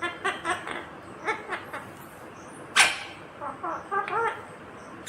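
Indian ringneck parrot chattering in a run of short, speech-like calls, with a loud squawk about three seconds in and another at the very end.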